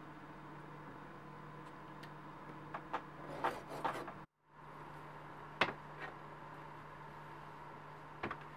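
Utility knife blade drawing through elephant leather against a cutting mat: a few light clicks, then a short scratchy cut about halfway through. Sharp single taps follow as the knife and leather pieces are set down, over a steady low hum.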